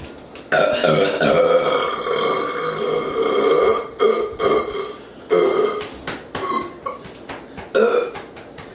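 A person burping: one long, drawn-out burp lasting about three seconds, then several shorter burps spaced a second or so apart.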